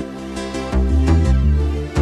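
Background electronic music with a deep bass and a steady beat.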